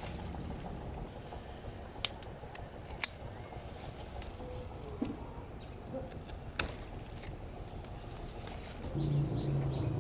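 Steady outdoor background with a thin, continuous high tone, broken by four sharp clicks, the loudest about three seconds in. Near the end a low motor hum starts.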